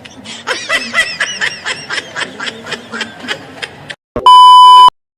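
A person laughing in a rapid run of short, high snickers, then a loud electronic beep lasting about half a second, near the end.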